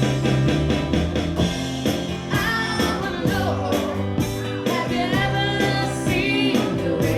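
Live rock band playing, with singing coming in a little over two seconds in.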